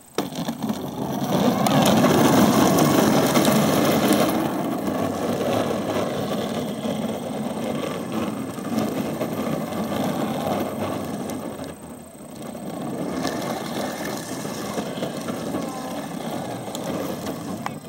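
Hard plastic wheels of a push-handle toddler ride-on car rumbling and rattling as it is pushed over pavement. The rumble starts suddenly, is loudest in the first few seconds, and eases briefly about twelve seconds in before rolling on.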